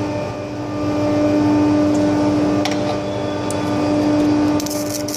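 Raymond 8400 electric pallet jack's drive motor running under throttle with a steady electric hum, punctuated by sharp snaps and, near the end, a burst of crackling. The crackling is electrical arcing from the bad motor, which sparks and arcs when the throttle is applied.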